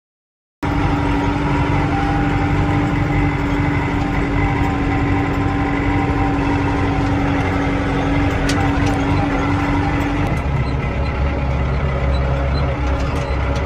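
A Case IH tractor's diesel engine running, heard from the operator's seat, starting abruptly after a brief silence with a steady hum. About ten seconds in the hum drops away and the engine sound turns to a deeper rumble as the tractor drives across the field.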